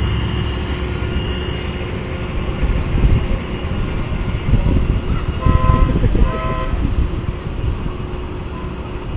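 A horn sounds two short toots, each about half a second, a little past the middle, over steady wind rumble on the microphone.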